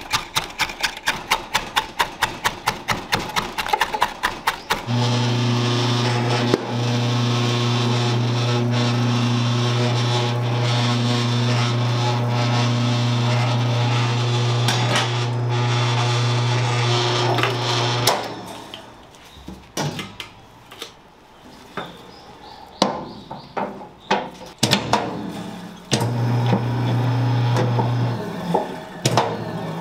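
A cleaver chops green onions quickly on a wooden cutting board, about five strokes a second. About five seconds in, an electric meat mixer starts and hums steadily as it blends ground pork and onions. It stops about eighteen seconds in, then comes scattered knocking and scraping, and the hum returns briefly near the end.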